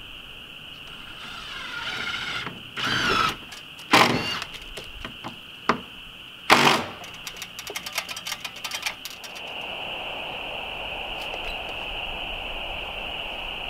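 A hand-held power tool runs in two short bursts of motor whine as battens are fastened to the siding. Two sharp knocks with a ringing tail follow, then a quick string of small clicks and rattles, all over a steady high whine.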